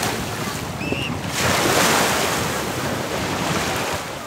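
Small sea waves washing on a shallow shore, mixed with wind blowing on the microphone; the rushing noise swells in the middle and eases off near the end.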